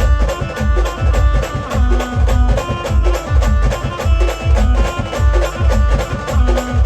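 Loud traditional folk band music: a heavy, steady drumbeat with a pitched melody held over it.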